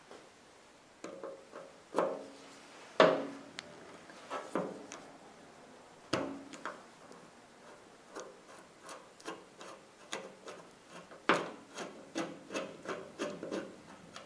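A rusted, paint-caked screw in an old Toyota bottle jack's cast body being worked loose with a hand screwdriver. Metal scrapes and creaks with several sharp cracks as it gives, the loudest about three seconds in, then a quicker run of clicks and scrapes as it turns out.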